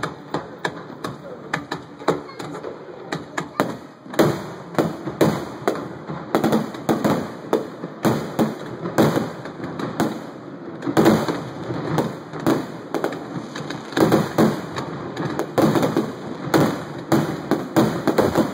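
Fireworks display: aerial shells bursting in a rapid, irregular series of sharp bangs, several a second.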